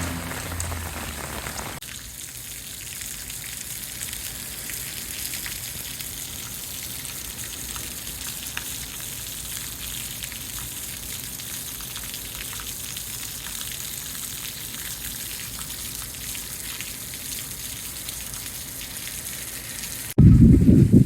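Steady rain falling, an even hiss with scattered ticks of drops. A low steady hum sits under it for the first two seconds, and a sudden loud low rumble cuts in near the end.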